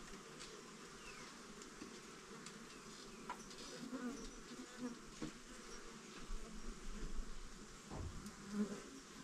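Many bees buzzing around, a steady wavering hum, with a few light knocks, the loudest near the end.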